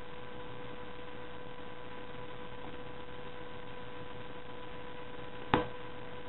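Steady electrical hum with hiss, made of a few thin steady tones, and one short sharp click about five and a half seconds in.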